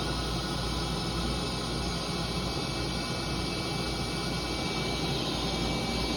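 Steady hiss of neon glassworking burners (crossfires), with gas flames heating a glass tube.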